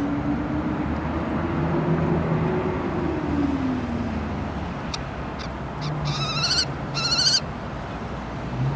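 Common kestrel at the nest giving two short, rapid trilled call series of about half a second each, a little past the middle, after a few faint ticks. A steady low hum runs underneath.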